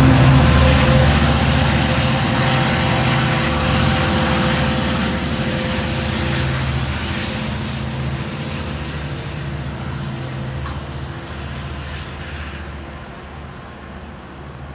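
A train moving away and fading, its low hum and rushing noise dying down steadily.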